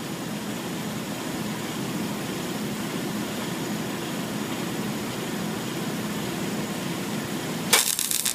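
Steady whirring hum while the TIG torch is idle; near the end the AC TIG arc strikes on a magnesium chainsaw case and gives a loud, harsh buzz.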